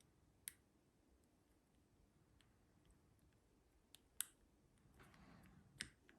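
Faint, sharp clicks of a lock pick and tension wrench working the pins inside a Master Lock Pro Series padlock, a handful of separate clicks with the loudest about four seconds in, while the picker tries to drop an overset pin back down.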